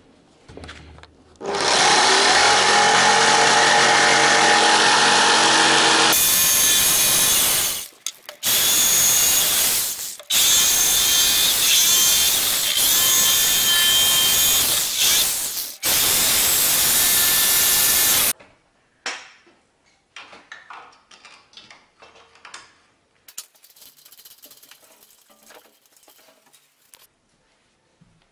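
Makita electric jigsaw cutting a pine plank, running loud in several long stretches of a few seconds each with short stops between, then stopping about eighteen seconds in; only faint knocks and handling sounds follow.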